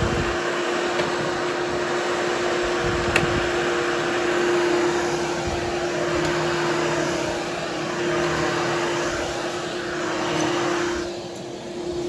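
Hoover HushTone vacuum running steadily with a constant hum over a broad hiss as it grooms the pile of a freshly cleaned berber carpet. It turns quieter and duller for a moment near the end.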